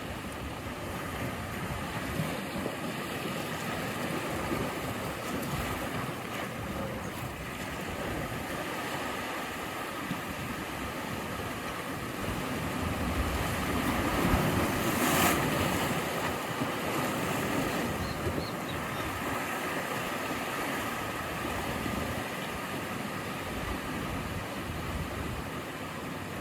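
Sea waves washing against the shore in a steady rush. One wave swells and breaks louder a little past halfway.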